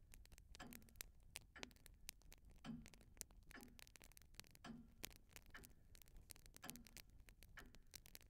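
Faint, regular ticking, about one tick a second, with many light, irregular clicks in between, from a soothing sound-effects backing track.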